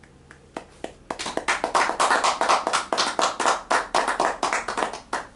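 Hand clapping: a short round of applause that starts about a second in, builds quickly into dense irregular claps and thins out near the end.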